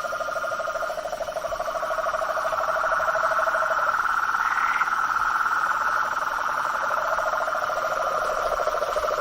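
A marsh frog chorus of two overlapping, rapidly pulsed trills: a lower one that drops out about four seconds in and comes back about three seconds later, under a higher one that keeps going.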